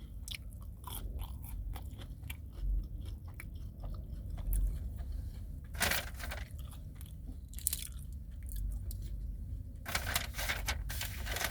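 Close-up chewing of McDonald's chicken nuggets: small wet mouth clicks and crunches. There is one louder sharp noise about six seconds in and a stretch of rustling near the end.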